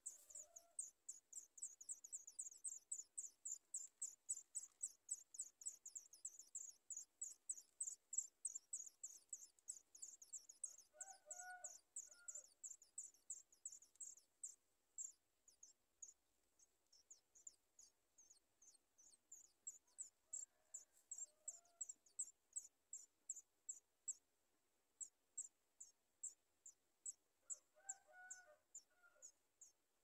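Songbird nestlings begging: a fast, faint run of thin, high, downward-slurred cheeps, about four a second, that thins out into gappier bursts after about fourteen seconds. A few faint lower calls come in now and then.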